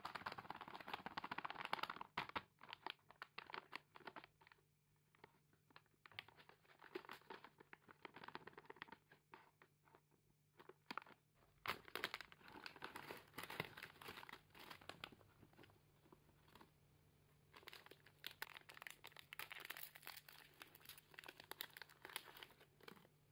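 Crinkling and crackling of a plastic snack bag being handled and torn open by hand, with short pauses. Then the plastic wrappers of individually packed cookies rustle.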